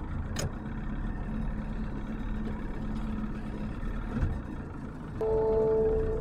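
Boat's outboard motor running steadily, with a sharp click shortly after the start. Background music comes in near the end.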